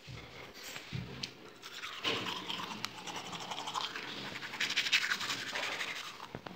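Teeth being brushed with a manual toothbrush: rapid back-and-forth scrubbing strokes that start about two seconds in, after a few soft knocks.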